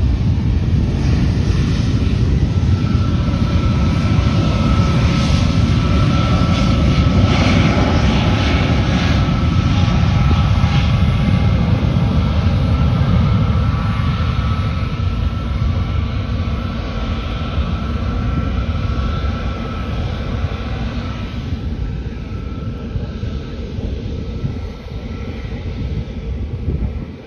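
Airbus A320neo jet airliner taking off: loud jet engine noise with a steady high whine, loudest about eight seconds in, then fading away over the second half.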